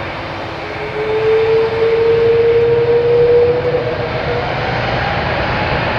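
Airbus A330 jet engines running at high thrust as the airliner rolls down the runway. A steady rush carries a clear whine that appears about a second in and rises in pitch.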